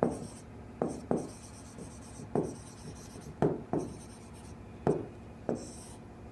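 Marker pen writing on a whiteboard: about eight short, scratchy strokes at an uneven pace, as a word is written and underlined.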